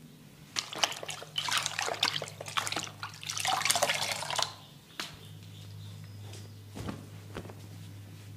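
Water splashing and dripping as a face is washed by hand, in a busy stretch of about four seconds, followed by a few soft taps. A steady low hum runs underneath.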